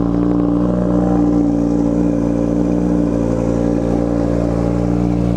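Audi RS3 8V's turbocharged five-cylinder engine idling steadily just after starting, through an exhaust fitted with Milltech bypass pipes that make it louder.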